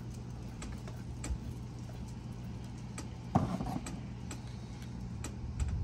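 Faint metallic ticks and clicks from a self-tapping screw being driven by hand with a screwdriver into a door-handle plate, cutting threads in the metal, with one louder knock about three and a half seconds in. A steady low hum runs underneath.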